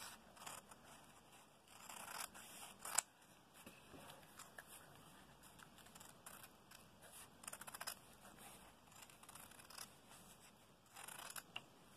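Fabric shears cutting through folded cloth: faint, irregular snips with rustling fabric and one sharper blade click about three seconds in.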